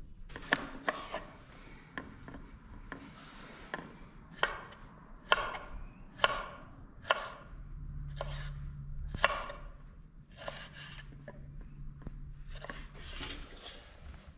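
Knife chopping food on a board in sharp, irregular strokes, roughly one a second, some much louder than others.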